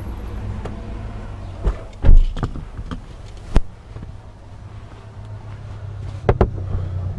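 A person getting into a car: bag and clothing rustling, then the car door shutting with a heavy thud about two seconds in, followed by a few sharp clicks inside the cabin. A low steady rumble runs underneath.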